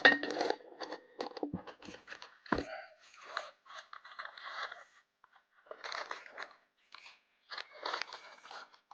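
Packaging being handled: irregular crunching, crinkling and tearing, with a sharp rustle at the start and a couple of dull knocks a few seconds in.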